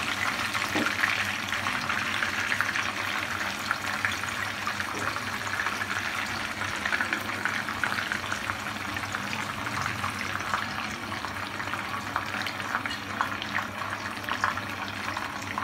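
Kebab patties dipped in egg frying in a large pan of hot oil: a steady sizzle with dense fine crackling.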